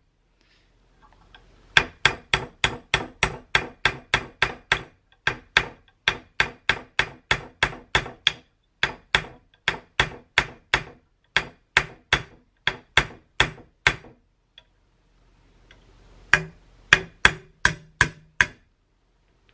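Brass-headed hammer tapping a steel pin punch, driving the trigger-housing pins of a Timney trigger into a Browning X-Bolt receiver. Quick, even taps at about three or four a second, in runs broken by short pauses, with a longer pause about fourteen seconds in.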